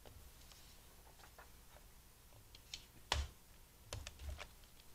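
Light clicks and taps from a plastic sliding paper trimmer and the paper being handled on it. There is one sharper click about three seconds in and a few more just after.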